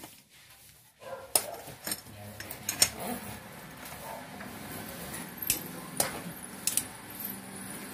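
Irregular sharp metallic clicks and clinks of a wrench working the brass flare-nut joints on the copper refrigerant pipes of a split-type air-conditioner indoor unit.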